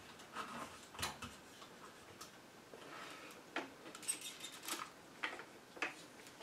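Light, scattered clicks and taps from hands and a small handheld tool handling a freshly strung tennis racquet on a stringing machine, coming more often in the second half.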